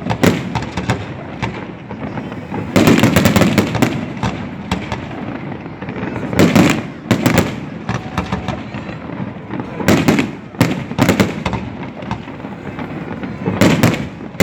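Fireworks going off: loud bangs that come in clusters every few seconds, with a steady din between them.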